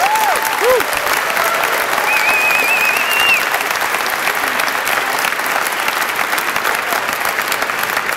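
Large audience applauding, with a few cheers in the first few seconds.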